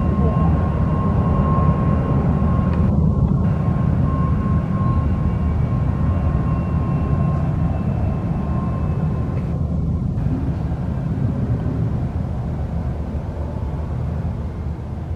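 Boeing 737-200's Pratt & Whitney JT8D turbofan engines running as the jet taxis past: a steady, heavy rumble with a thin whine on top, fading slowly toward the end.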